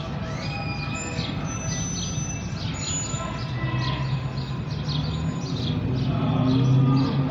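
Small birds chirping, many short chirps repeating several times a second, over a steady low rumble that grows louder near the end.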